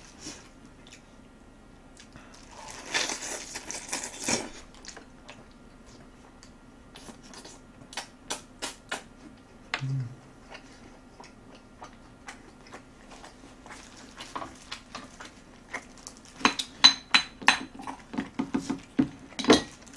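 Close-miked eating: chewing and slurping mouth noises, a short closed-mouth hum about ten seconds in, and quick clicks of chopsticks against a ceramic rice bowl, thickest near the end.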